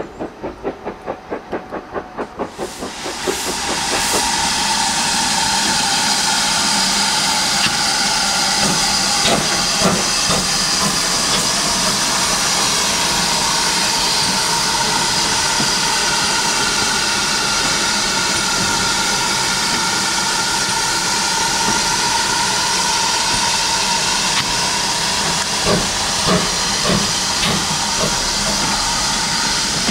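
Steam locomotive exhaust beating rapidly, about four beats a second, for the first few seconds. Then GWR 4575-class 2-6-2 prairie tank 5521 standing with steam blowing off: a loud, steady hiss with a whistling tone in it, and a few short clanks along the way.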